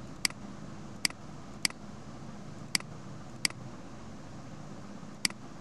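Computer mouse clicking: six short, sharp clicks at irregular intervals over a steady background hiss and low hum.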